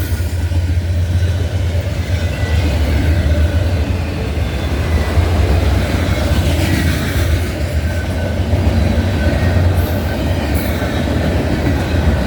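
Manifest freight train rolling past at speed: a loud, steady low rumble of wheels on rail, with some clatter.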